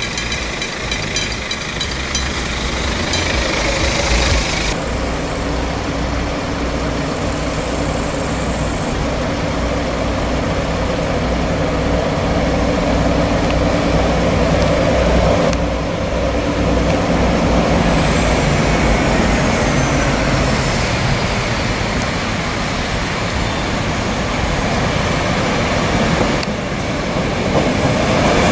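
Level-crossing warning bell ringing in rapid, even strokes, then the steady running of two VR Class Dv12 diesel locomotives hauling a freight train toward the crossing, getting louder near the end as they arrive.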